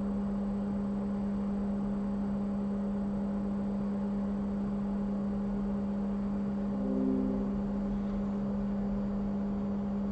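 Steady low electrical hum from the soldering bench equipment, with a brief faint higher tone joining it about seven seconds in.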